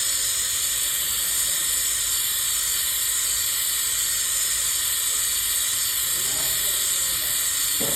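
Brazing torch flame hissing steadily while the copper discharge line of a refrigerator compressor is brazed.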